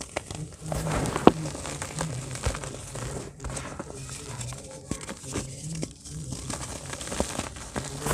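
Dry grey dirt and chalky lumps crumbled and sifted by hand in a plastic tub: a dry, grainy crunching and rustling as grit pours through the fingers, with sharp cracks now and then as clods break or knock together, the loudest about a second in.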